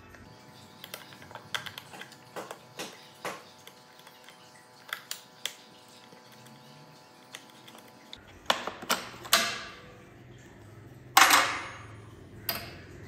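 Scattered clicks and knocks of hands working a motorcycle battery's cable and fittings free. A few louder clanks come in the last few seconds, the loudest about eleven seconds in, with a short ring after it.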